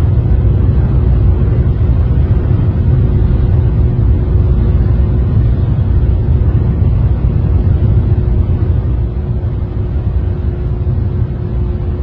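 Loud, steady low rumble of strong wind buffeting the microphone, with a faint steady hum running through it.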